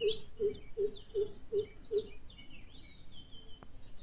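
Birds chirping with a steady high insect trill behind them. A low short note repeats six times, two or three a second, over the first two seconds, and there is a single click near the end.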